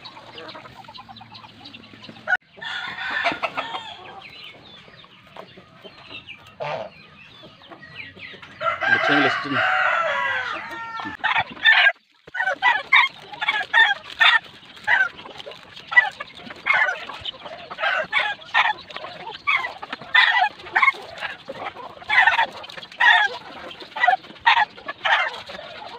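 Backyard chickens: a rooster crows once, about nine seconds in, and from about halfway on hens cluck in quick, repeated short calls.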